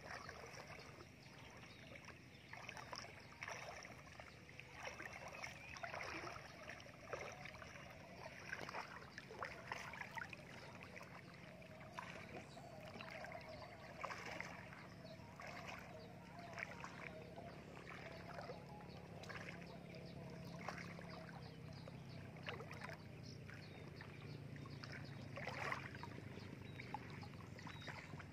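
Legs wading through shallow floodwater, a soft slosh and splash with each step, roughly one a second.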